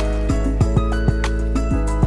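Background music: held, pitched notes over a steady, regular beat.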